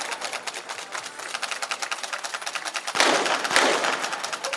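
Two .22 sport pistol shots about half a second apart, fired near the end by two shooters in a rapid-fire shoot-off, each with a short echo in the shooting hall.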